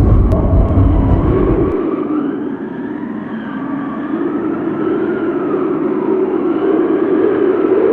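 Thunder sound effect: a heavy, deep rumble that cuts off abruptly about two seconds in, leaving a wavering, slowly sliding higher tone over a steady rushing noise.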